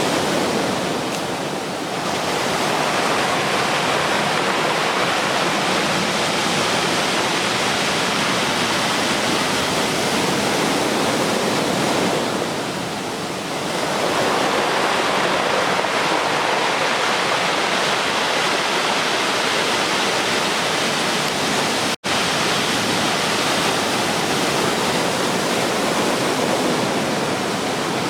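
Ocean surf from a large typhoon swell breaking on the beach: a steady, loud wash of waves that eases briefly twice. The sound cuts out for an instant about three-quarters of the way through.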